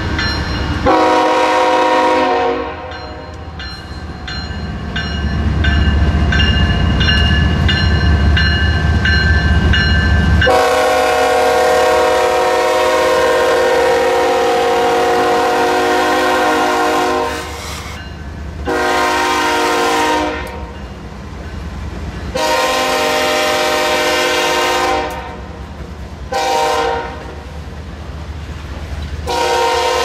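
A freight locomotive's multi-chime air horn sounding a series of blasts: a brief one about a second in, a long one of several seconds in the middle, then long, long, short and a final long near the end, the pattern of a grade-crossing signal. Between the first blasts, loaded grain hopper cars rumble heavily over the rails.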